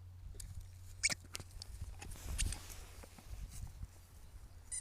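A dog's rubber squeaky ball squeaking as the dog bites it: a short high squeak about a second in and another near the end, with light clicks and patter between them.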